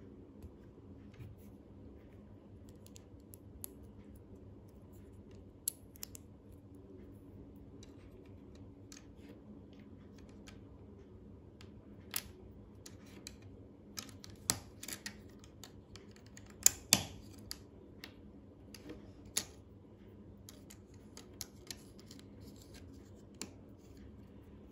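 Plastic LEGO bricks clicking and tapping as they are handled and pressed together by hand: scattered sharp clicks, with a couple of louder snaps about two-thirds of the way through, over a faint low hum.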